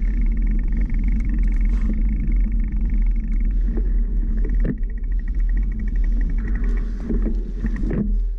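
Wind rumbling hard on an action camera's microphone while riding a bicycle at speed, with a thin steady high whine and a few light knocks.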